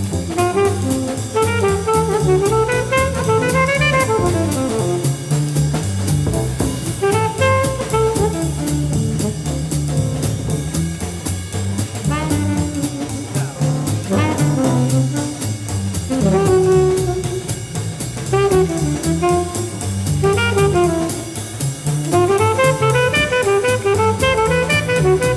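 Small jazz group playing live: an alto saxophone solo line over plucked double bass and a drum kit keeping a steady cymbal beat.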